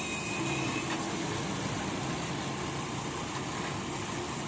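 Heavy diesel machinery running steadily, with no distinct knocks or impacts.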